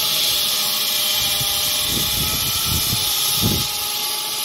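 A motor-driven machine running steadily: a constant hiss over a low hum, with a few low rumbles between about two and three and a half seconds in.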